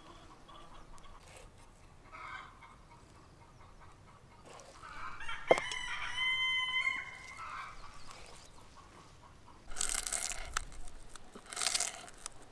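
A rooster crows once, about five seconds in, just after a sharp click. Near the end comes crisp crunching as a knife cuts through a dry sheet of nori on a wooden board.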